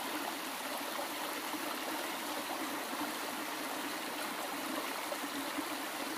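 Small shallow stream flowing over rocks and spilling down a low step: a steady rush of running water.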